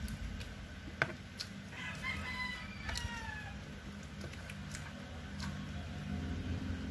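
A rooster crowing once, about two seconds in, the call ending in a falling tail, over a steady low rumble.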